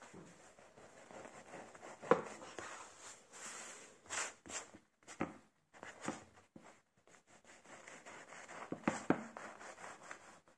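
Knife sawing through a crusty bread loaf on a wooden cutting board: irregular short rasping strokes with a few louder knocks, the loudest about two seconds in and another near nine seconds.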